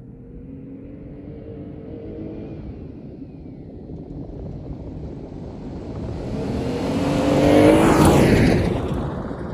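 A vehicle engine revving up, its pitch and loudness rising steadily to a peak near the end as it passes close by, then falling away.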